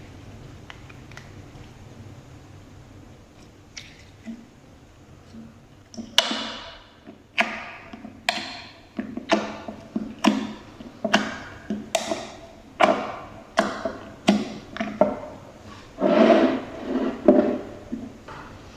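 Slime being squeezed and pressed by hand: soft handling at first, then from about six seconds in a steady run of sharp squishes and air-pocket pops about once a second, with a longer squelching stretch near the end.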